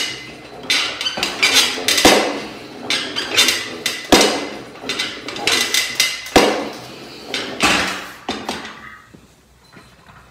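Cable home gym working through chest-fly reps on its press arms: a metal clank about every two seconds as the weight settles at the end of each rep, with the machine moving and rustling between, dying away near the end.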